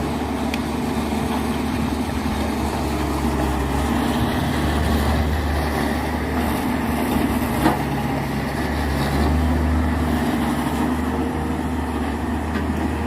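Excavator engine running steadily, its pitch rising a little twice, with a single sharp click a little past halfway.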